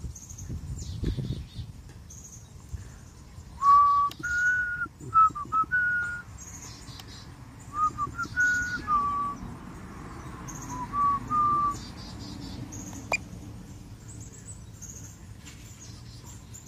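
A person whistling a short tune in steady held notes that step up and down, over faint high-pitched bird chirps in the background. A single sharp click comes near the end.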